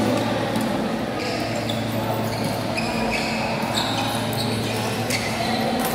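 Sneakers squeaking on the badminton court floor: several short, high squeaks. A sharp racket hit on the shuttlecock comes about five seconds in. Background voices and a steady low hum run beneath.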